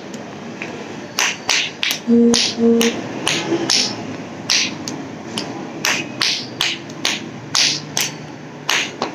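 Clackers (tik tik / tak tak toy): two hard balls on a string knocking together in sharp, irregular clacks, about two or three a second.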